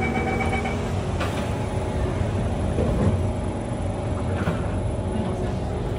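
Inside a Kawasaki C151 MRT train car, a steady door-closing warning tone stops just under a second in and the sliding doors shut with a knock about a second in. The train's steady hum carries on after.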